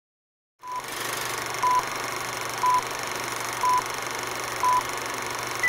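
Film-leader countdown sound effect: a steady hiss with a short beep every second, five in all, then a higher-pitched beep right at the end.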